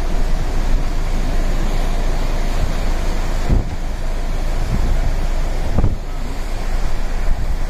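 Storm waves surging and breaking against a pier in a rough sea, with strong wind buffeting the microphone in gusts.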